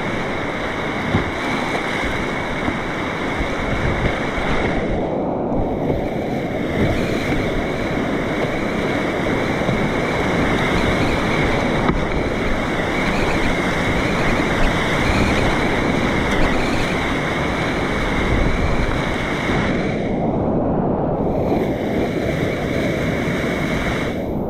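Steady rush of whitewater river rapids, an even wash of water noise.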